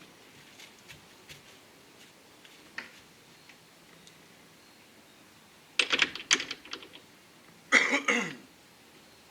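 A few faint ticks, then two short bursts of clattering about six and eight seconds in.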